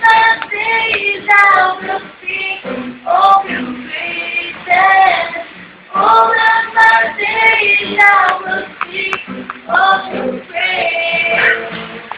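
A young woman singing a melody into a microphone, in phrases with short breaths between them, with acoustic guitar accompaniment, recorded on a mobile phone.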